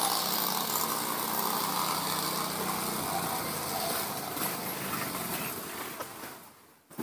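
A motor running steadily under an outdoor background hiss, its low hum easing off about three seconds in; the whole sound fades out near the end.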